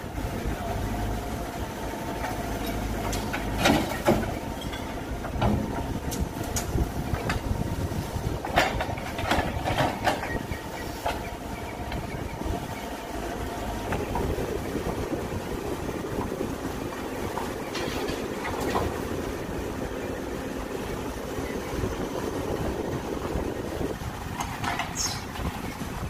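CAT 426F backhoe loader's diesel engine running steadily under load while the backhoe bucket digs and dumps brick rubble and soil, with sharp clanks and knocks of bucket and debris a handful of times.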